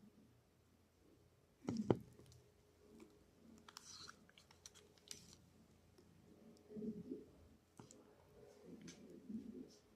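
Faint scattered clicks and light knocks, with one sharper knock about two seconds in and a cluster of thin clicks a couple of seconds later.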